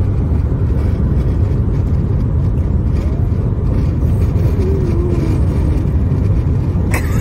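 Steady low rumble inside a car's cabin, the noise of the car running.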